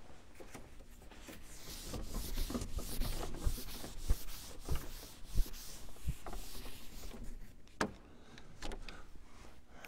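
A dry-erase whiteboard being wiped clean with an eraser: quiet rubbing strokes, with soft low knocks and a sharp tap about eight seconds in.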